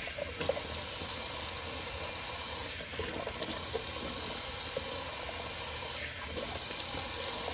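Cold water running from a bathroom sink tap while it is splashed onto the face by hand. The steady hiss of the stream dips briefly three times.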